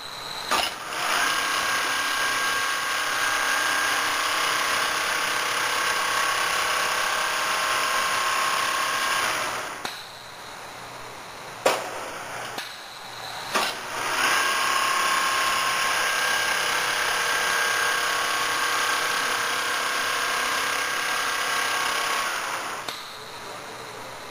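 ABM double-needle quilting machine running, a steady mechanical whir in two long runs of about eight to nine seconds each. Between the runs it drops quieter for a few seconds, with sharp clicks.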